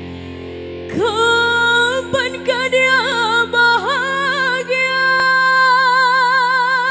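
A female singer's solo voice over a held band chord. She comes in about a second in with a rising scoop, runs through quick ornamented turns, then holds one long note with a steady, wide vibrato. The lowest bass tone of the chord drops out about five seconds in.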